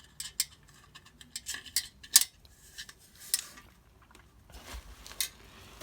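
Light metallic clicks and clinks from ceiling fan parts being handled, irregular, with one sharper clink about two seconds in.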